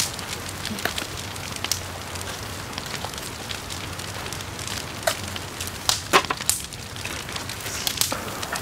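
Wood fire crackling under a large metal pan, with a steady rush and scattered sharp pops. The loudest pops come about five and six seconds in.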